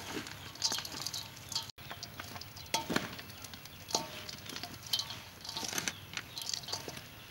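Shredded green mango salad being tossed by hand and with a wooden spoon in a metal bowl: irregular crisp rustling of the mango strips, with scattered clicks and knocks of the spoon against the bowl, some of them ringing briefly.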